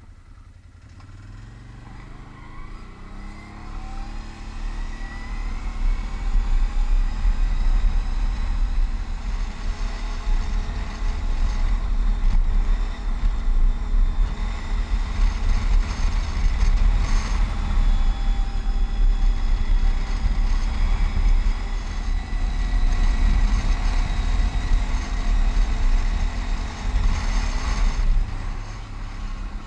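Can-Am ATV engine pulling away, its pitch and level rising over the first few seconds. It then runs steadily at riding speed and eases off a little near the end.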